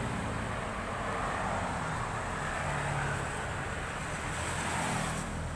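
Road traffic going by: steady road noise, with a passing vehicle's engine hum growing louder midway and then fading.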